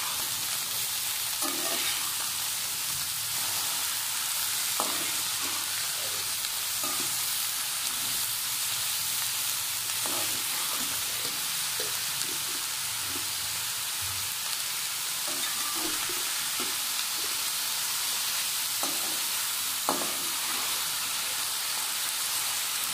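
Sliced onions and cut okra sizzling in hot oil in a metal pot, with a steady hiss. A metal spatula stirring them scrapes and knocks against the pot now and then.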